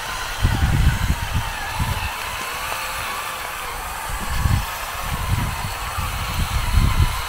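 Steady hiss of oil and potatoes sizzling in a large pan over a fire, with irregular low rumbles.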